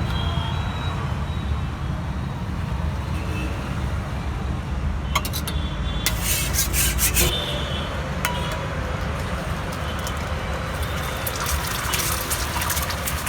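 Street-stall cooking: metal utensils scraping and clattering on a cooking surface, in bursts partway through and again near the end, over a steady low rumble of traffic.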